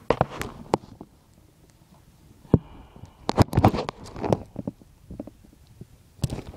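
Handling noise from a phone held close to its microphone: a run of bumps, rubs and clicks, in two clusters near the start and near the middle, with a quieter gap between.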